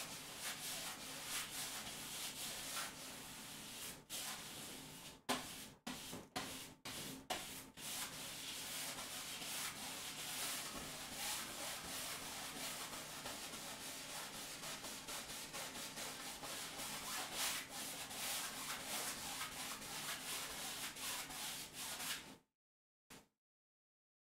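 Paintbrush scrubbing and blending paint on a canvas: a continuous dry rubbing that pauses briefly a few times about five to seven seconds in and stops shortly before the end.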